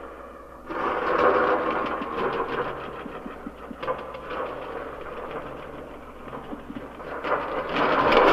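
Rumbling, machine-like noise texture with a dense crackle, part of a live sound-art soundtrack. It drops away briefly at the start, comes back about a second in, and swells louder near the end.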